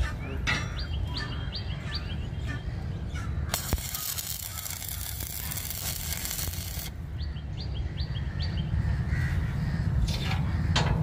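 Birds chirping in short repeated notes over a steady low rumble, with a few sharp knocks. A loud hiss lasts about three seconds in the middle.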